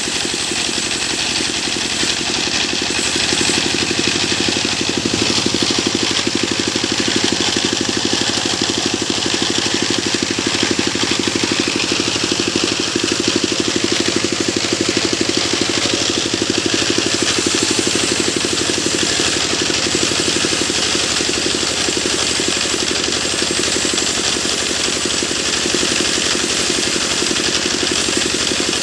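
Sawmill machine running steadily: an engine-driven drone with a fast even pulse and a hiss on top. It gets a little louder about three and a half seconds in and eases back around eighteen seconds.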